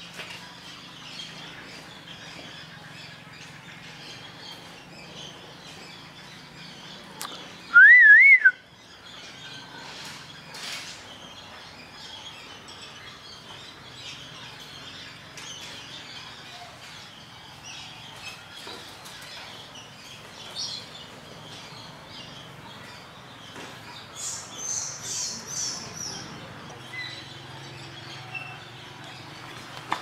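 Birds calling: one loud warbling whistle about eight seconds in, and a quick run of high chirps in the last third, over a steady low hum of background noise.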